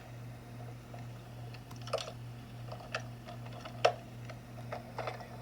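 Scattered light clicks and taps, about six at irregular intervals with the sharpest a little after the middle, over a steady low hum.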